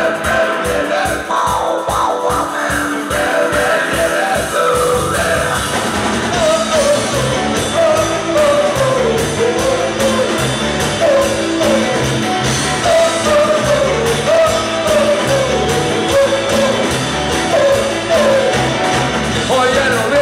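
Live rock band playing loudly through a PA: electric guitars, bass and drums, with a wavering lead melody. The low end fills out about five seconds in, as the full band comes in.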